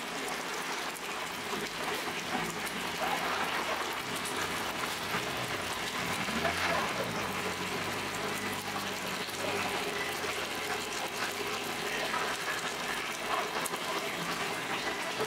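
Water running steadily from a tap into the steel bowl of a dough mixer.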